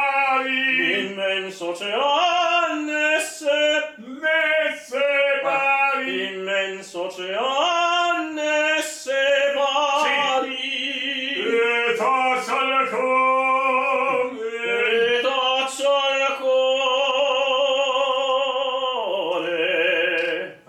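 Operatic tenor singing in full voice: a string of phrases with short breaths between them, then a long held note with a wide vibrato near the end.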